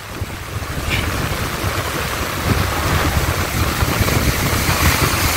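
Surf breaking and washing up the beach, with wind buffeting the microphone in an uneven low rumble.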